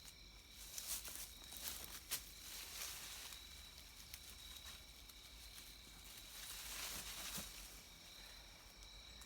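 Swiss Army knife blade cutting into a small poplar trunk: irregular scraping strokes as wood shavings come off.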